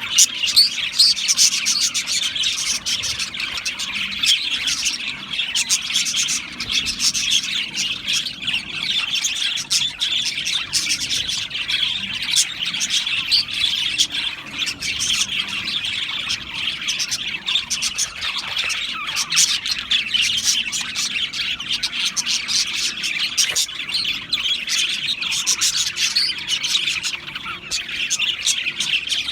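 Budgerigars chirping and chattering without pause, many short calls overlapping.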